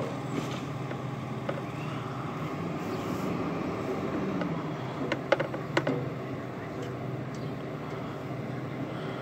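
Garbage truck engine running with a steady low hum, and a quick run of sharp clanks about five seconds in.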